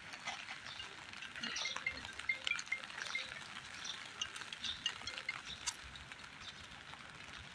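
Light rain falling on paving, a steady hiss with scattered small drop ticks.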